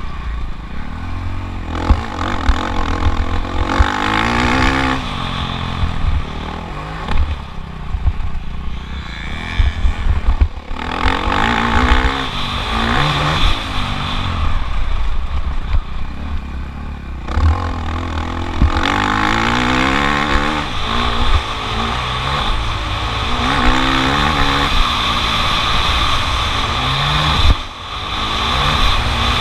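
Motocross bike engine revving up and dropping back again and again as the rider accelerates, shifts and brakes around the track, heard from an onboard GoPro. Scattered knocks and clatter from the bike over rough ground.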